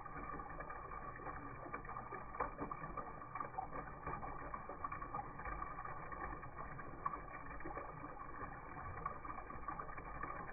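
Water pouring in a steady stream from a plastic jug's spigot into a plastic backpack sprayer tank as it fills.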